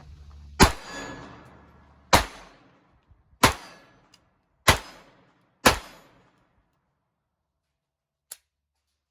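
Five .22 LR pistol shots from a Glock 19 fitted with an Advantage Arms .22 conversion slide, fired one at a time at an uneven pace about one to one and a half seconds apart. Each is a sharp crack with a short ringing tail.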